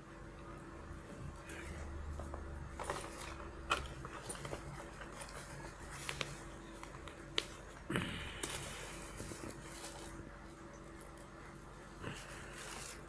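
Targus Grid fabric sling bag being handled and shifted about on a plastic bag: rustling and scraping with a scatter of small taps and clicks, and a louder rustle about eight seconds in.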